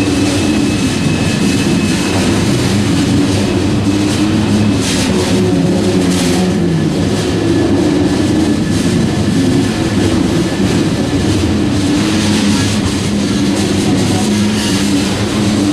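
Oil tank cars of a long freight train rolling past at close range: a steady, loud rumble of steel wheels on the rails, with a few sharper clanks.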